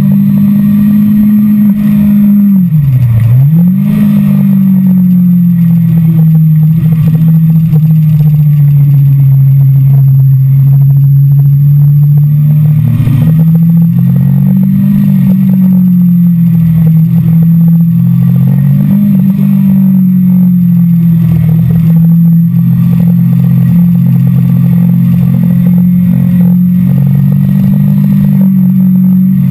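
Kawasaki sport motorcycle engine heard from a camera on the bike, running at moderate revs on a circuit. The revs drop sharply about three seconds in and climb back, then hold fairly steady with a couple of gentle rises and falls.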